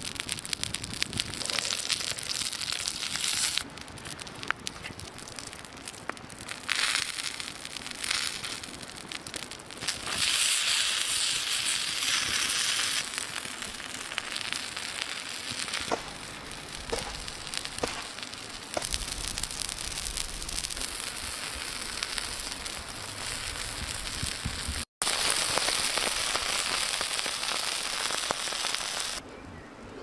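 Outdoor cooking sounds: a wood fire crackling and food sizzling, a steady hiss with scattered sharp clicks. The sound changes abruptly several times, with a brief dropout about 25 seconds in.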